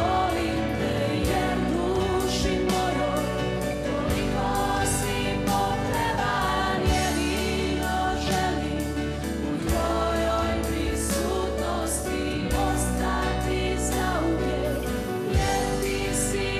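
A mixed group of men and women singing a Christian worship song together in chorus, with a woman's voice on a microphone leading.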